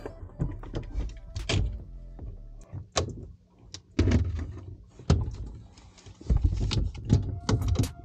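Cordless drill-driver running in short spurts as it backs out the ice maker's mounting screws, among repeated knocks and clunks of the tool and plastic parts being handled.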